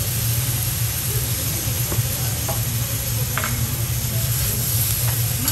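Vegetables and butter sizzling steadily on a hot teppanyaki steel griddle, with a few faint clicks of a metal spatula against the plate, over a constant low hum.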